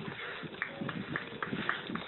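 Quick running footsteps at a steady pace of about three to four steps a second.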